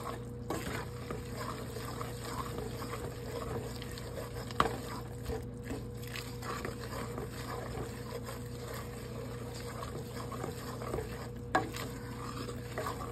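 Wooden spoon stirring boiled macaroni coated in butter and cheese powder in a pot: a soft, wet, squishing scrape. The spoon knocks sharply against the pot twice. A steady low hum runs underneath.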